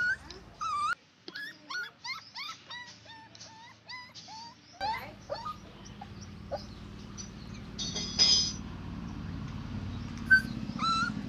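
Tan short-haired dog whimpering and yipping in a quick run of short, high, wavering calls, then only a few scattered calls over a steady low hum. A brief hiss comes about eight seconds in, and a short sharp squeak a little after ten seconds.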